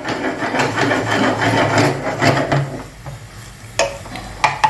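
A spatula stirring and scraping food around a frying pan, with a few sharp knocks of utensil on pan near the end.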